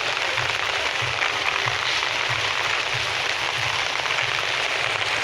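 Steady rain hiss, with soft low footfalls a little under two a second from someone walking.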